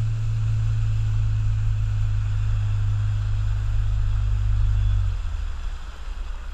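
Motorboat engine running with a steady low hum, over a hiss of water and wind. About five seconds in the hum drops away sharply.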